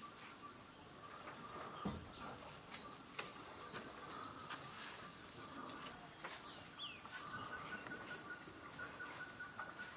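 Forest insects droning steadily at a few different pitches, with short bird chirps and calls scattered through. There is one low thump about two seconds in.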